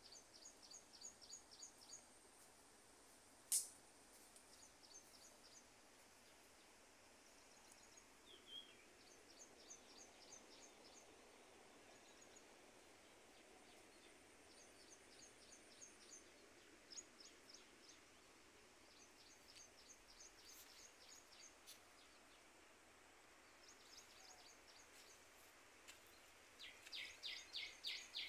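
Quiet natural ambience with short trains of rapid, high-pitched chirps from small wild creatures recurring every few seconds. A louder, lower train of chirps starts near the end, and there is one sharp click a few seconds in.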